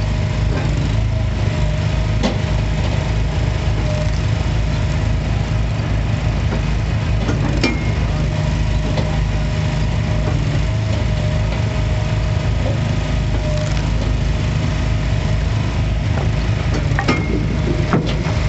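Small gas engine of a hydraulic log splitter running steadily, with a few sharp cracks and knocks as wood is split.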